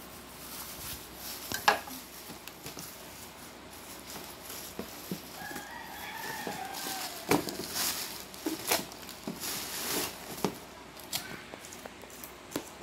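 Plastic parts of a tabletop drum grater clicking and knocking as they are handled and fitted together, with crinkling plastic wrap; a sharp click a little under two seconds in is the loudest. Midway, a long pitched call of about a second and a half, falling slightly at its end.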